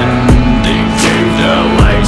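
Background music with a steady, heavy beat.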